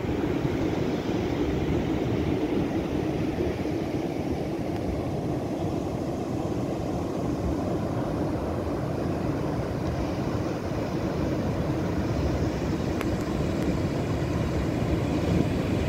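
Steady roar of heavy ocean surf breaking on the beach, mixed with wind on the microphone.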